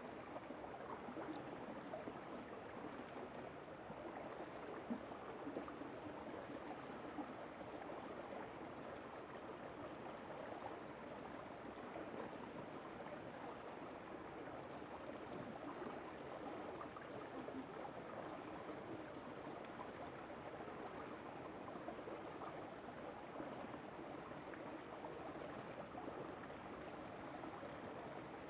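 River water flowing and babbling over stones, a steady rushing with small splashes and gurgles.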